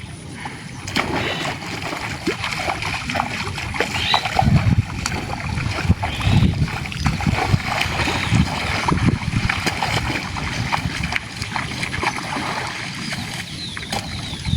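Water splashing and sloshing in shallow water, in irregular bursts with heavier surges about 4, 6 and 8 seconds in.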